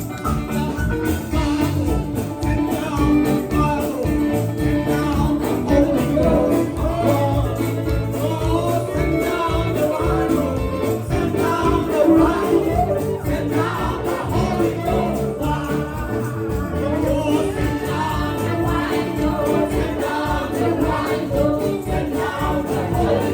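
Congregation singing a gospel praise song in chorus over an instrumental accompaniment with a steady beat.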